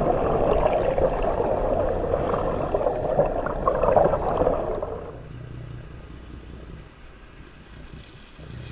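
Boat under way at sea: water rushing past the hull along with the engine, loud for about five seconds and then dropping to a quieter low hum.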